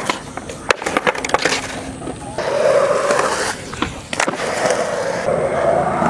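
Skateboard wheels rolling on concrete in stretches, broken by several sharp clacks of the board hitting the concrete as a skater jumps a ramp.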